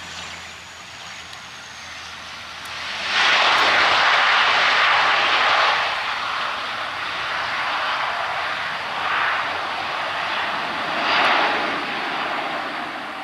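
De Havilland Canada Dash 8-400 turboprop's two Pratt & Whitney PW150A engines and propellers on the landing roll. The noise surges sharply about three seconds after touchdown, typical of the propellers going into reverse pitch to slow the plane, then stays loud with two further swells.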